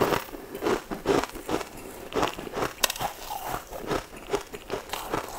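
A person chewing crunchy food close to the microphone: a steady run of crisp crunches, about three or four a second.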